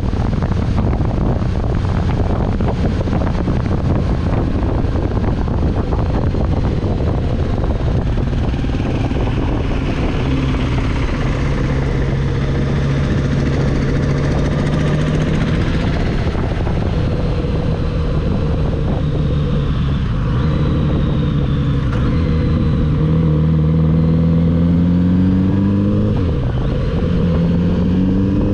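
Kawasaki Z900RS inline-four engine running with wind rush. Its note holds fairly steady for a while, then climbs in several rising pulls through the last few seconds as the bike accelerates through the gears.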